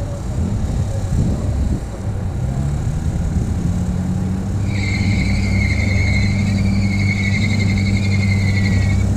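Car engine running steadily at low revs, a low even hum that grows firmer a couple of seconds in. From about halfway a high, slightly wavering whistle-like tone joins it and holds for about four seconds.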